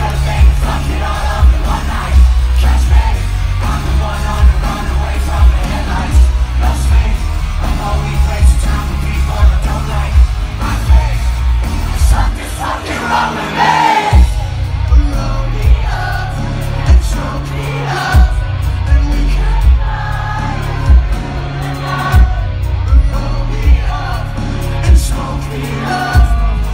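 Live band playing loudly through a festival PA, heard from inside the crowd, with a singer and the crowd shouting along over heavy bass and drums. About halfway through, the bass drops out for a moment and then comes back in.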